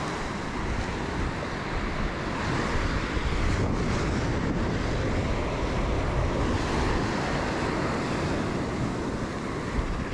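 Small surf waves breaking and washing up the beach, mixed with wind buffeting the microphone, at a steady level.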